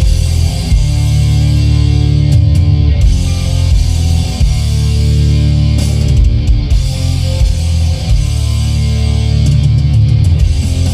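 Rock music with guitar and drums playing loudly through the 2014 Ford Flex's factory Sony stereo, with a strong bass end.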